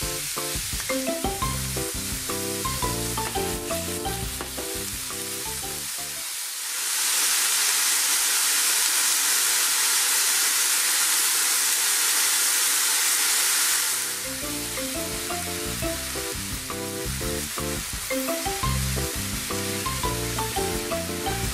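Thin-sliced pork sizzling in a hot frying pan, over background music at first. For about seven seconds in the middle the music stops and the sizzle is heard loud and close. Near the end, sliced white leek is stirred in with chopsticks over the sizzle as the music returns.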